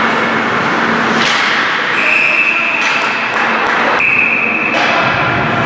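Ice hockey game sound in an arena: a steady din with sharp knocks of sticks and puck. Two short, high, steady tones sound about two seconds apart.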